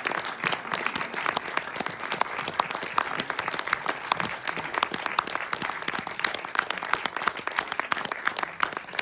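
Audience applauding steadily, a dense run of hand claps.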